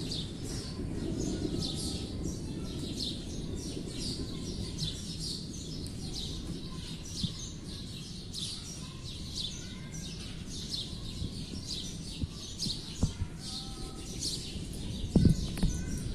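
A small bird chirping over and over, short high chirps about twice a second, over a steady low rumble. A few sharp knocks near the end.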